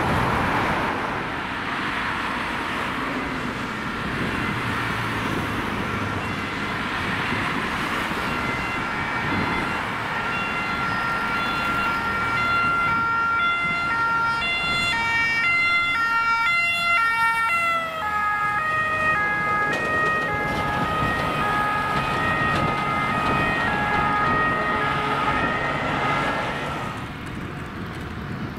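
Road traffic, then a French two-tone ambulance siren switching back and forth between two notes. It comes in about a third of the way through, drops slightly in pitch past the middle as it goes by, and fades near the end.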